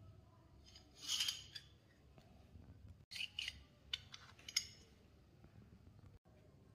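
Steel slide of an Astra 4000 Falcon pistol scraping along its frame about a second in, then several short, sharp metal clicks as the parts are fitted together and handled.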